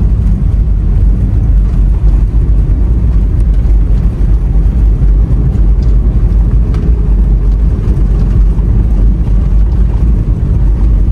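A car driving, heard from inside its cabin: a steady low rumble of engine and road noise.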